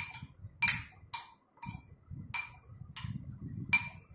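A metal fork clinking against a glass mixing bowl, about seven clinks in four seconds, each ringing briefly. Between the clinks there is a low scraping as chopped vegetables are stirred in the bowl.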